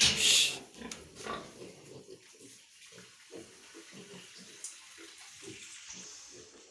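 A loud splash of water at the start, followed by pigs giving short, low grunts over and over.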